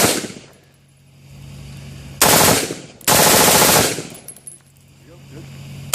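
Automatic gunfire in bursts: a shot or burst right at the start, a short burst about two seconds in, a longer burst of nearly a second just after three seconds, and another beginning at the very end.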